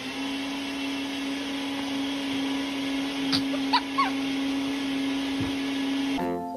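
A household appliance motor running steadily: a droning hum with a hiss over it. A few short high chirping glides come about three and a half to four seconds in. Near the end the drone stops and piano music takes over.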